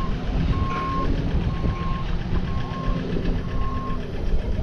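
A vehicle's reversing alarm beeping about once a second, over a low engine rumble.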